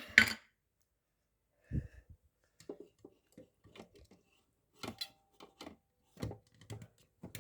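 Irregular clicks and knocks of small objects being handled, with a louder clatter at the start.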